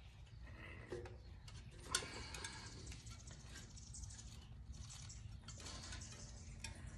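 Faint clicks and scrapes of a metal tire iron and a stiff mountain-bike tire bead being levered over the rim, with a sharper click about two seconds in. The bead is being worked on by brute strength.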